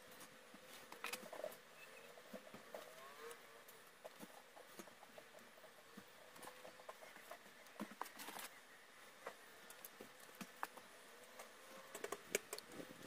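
Near silence broken by faint scattered clicks and light taps, with a small cluster of them about a second in and more near the end, from hands working on the steel frame of a homemade table saw.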